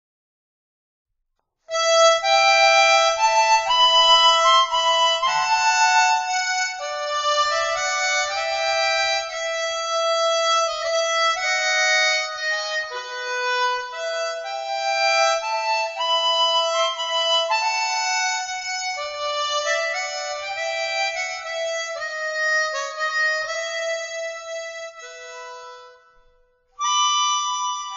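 Instrumental background music: a solo melody that starts about two seconds in, breaks off briefly near the end, then resumes.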